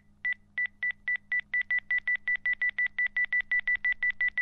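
A rapid series of short, identical electronic beeps at one pitch, a title sound effect, quickening from about three a second to about six a second after the first second and a half. A faint steady low hum lies under it.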